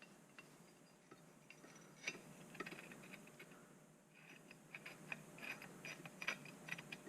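Faint, scattered metal clicks and ticks of an 18-inch Ridgid pipe wrench being worked by hand, its freshly greased adjusting nut and jaw moving; the clicks come closer together in the second half.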